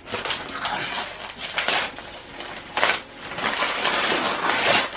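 Packaging wrap crinkling and rustling in repeated surges as a rolled silicone mat is unwrapped and unrolled by hand.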